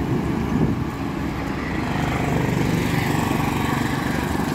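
Wind buffeting the microphone of a moving bicycle, a steady low rumble.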